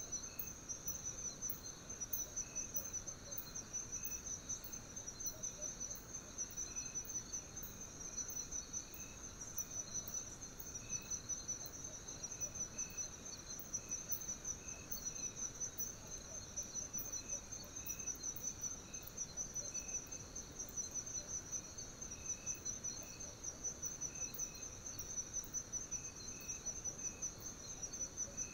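Insects singing in a continuous chorus: a steady, rapidly pulsing high trill, with fainter intermittent chirps lower in pitch.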